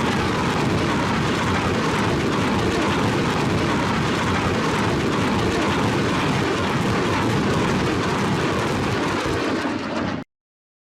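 BM-21 Grad multiple rocket launcher firing a 20-rocket salvo: the rockets launch in quick succession, blending into one dense, continuous rushing noise that cuts off abruptly about ten seconds in.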